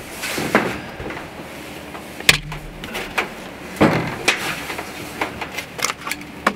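Irregular scrapes, knocks and clothing rustle as a person shifts while lying on ridged metal roofing, with a sharp knock a little over two seconds in.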